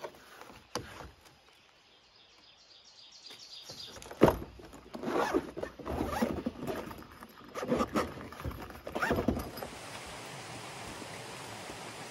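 Fishing gear and its packaging being handled during an unboxing: a few clicks, a sharp knock, then several short bursts of rustling and scraping. About ten seconds in this gives way to the steady rush of flowing creek water.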